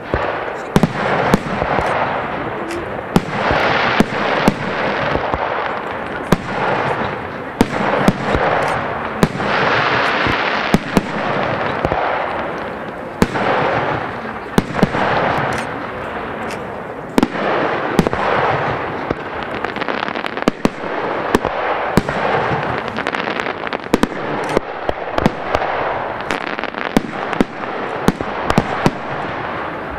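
Aerial firework display: shells launching and bursting in quick succession, many sharp bangs over a continuous rushing hiss that swells and fades.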